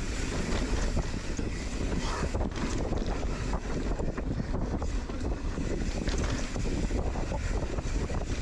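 Heavy wind buffeting the microphone: a constant loud low rumble and rushing, with scattered small clicks and rattles through it.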